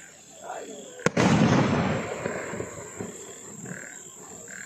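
An aerial shell from a Pandyan-brand 30-shot firework cake bursting overhead about a second in: one sharp bang followed by a loud noisy rumble that fades away over about two seconds.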